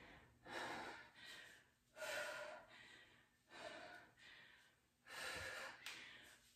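A woman breathing heavily, out of breath from a kettlebell interval: about four faint, deep breaths, one every second and a half.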